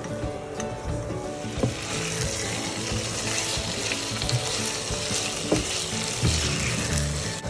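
Prawns, onion and garlic sizzling in hot oil in a frying pan and being stirred with a spatula. The sizzle grows much louder about a second and a half in, as the prawns hit the oil. Background music plays underneath.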